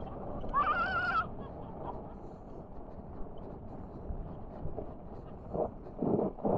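Tyres of an unpowered downhill scooter rolling fast over a gravel track, a steady rumble, with a few louder bursts near the end. About half a second in, a short wavering high-pitched voice call rises over it.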